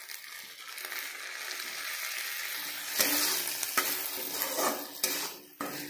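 Vinegar sizzling on hot masala in a wok. About three seconds in, a metal spatula starts scraping and stirring the mixture against the pan in several strokes.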